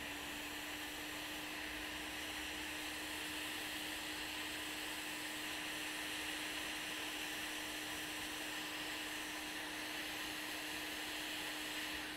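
A hot air rework station blowing onto a laptop motherboard: a steady airflow hiss with a low, even fan hum beneath it. It is heating the solder under a power inductor to desolder it, and the air cuts off at the very end as the inductor comes free.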